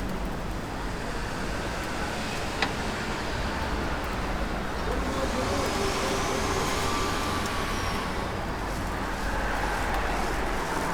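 Street traffic noise: a steady rumble of passing cars, with a single sharp click about two and a half seconds in.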